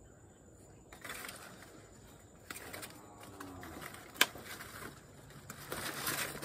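Cacao leaves and branches rustling as hand pruners work in the tree, with a few sharp snips; the loudest comes about four seconds in.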